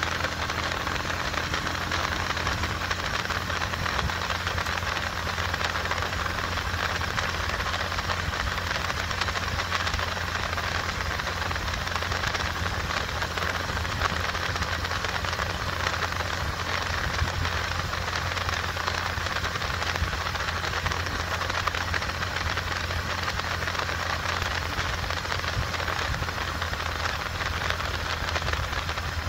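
Small motorcycle cruising at a steady speed: the engine's low hum under a constant rush of wind on the microphone, without any rise or fall in pace.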